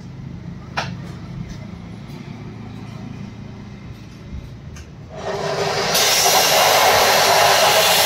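Low hum, then about five seconds in a loud, steady rushing hiss of air builds up and holds.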